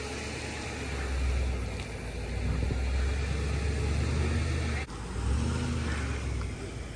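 A motor vehicle's engine running steadily at low speed, with a low hum that swells and eases and drops out for an instant about five seconds in before picking up again.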